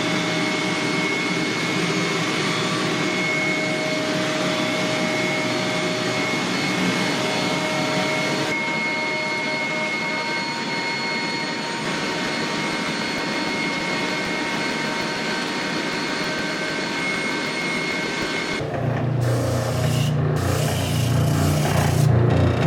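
A shop power tool running steadily, a constant whirring noise with a thin whine over it. Music begins near the end.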